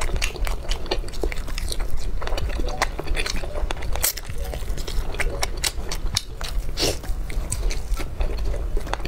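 Mouth sounds of biting and chewing a soft fish-roe pouch dumpling: a run of irregular sharp clicks and smacks over a steady low hum.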